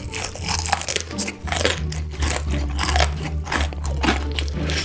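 Close-miked eating of crispy fried chicken: repeated crunchy bites and chewing as meat is pulled off a drumstick.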